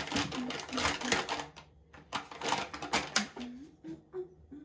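Crinkling and rustling of a soft plastic packet of facial cleansing wipes as it is handled and a wipe is pulled out, in two stretches that die away about three and a half seconds in. A woman's voice hums short notes alongside.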